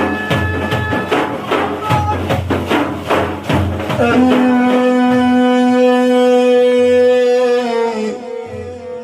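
Devotional music: drums beating a steady rhythm of about three strokes a second, then about four seconds in a single long held note takes over and fades near the end.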